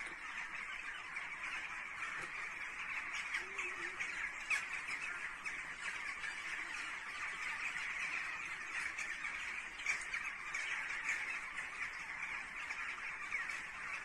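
A large flock of birds calling all at once: a steady, dense chatter of many overlapping short calls, as the birds wheel up out of roosting trees in the dark.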